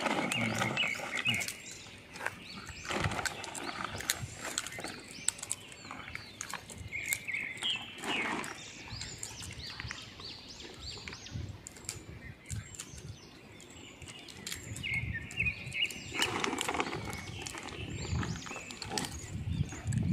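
A plastic carrier bag rustling and crinkling as gray langurs are hand-fed from it, with many small irregular clicks and crackles, and short high chirps now and then.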